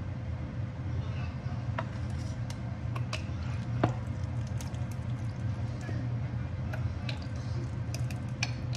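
Ketchup being squeezed out of a plastic squeeze bottle, with scattered sharp clicks from the bottle, over a steady low hum.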